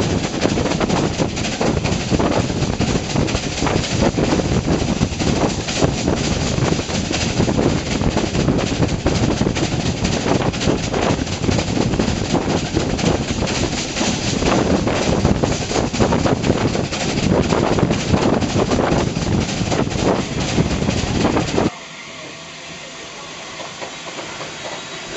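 Steam-hauled passenger train running at speed, heard from the leading carriage window just behind the locomotive: a loud, dense, steady rumble and clatter of wheels and motion. About 22 seconds in it cuts abruptly to a much quieter, steady hiss.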